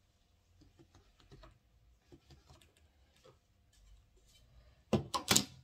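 Faint light taps and rustles of a long wooden ruler being handled over fabric on a table, then a quick run of sharp wooden clacks about five seconds in as the ruler is set down.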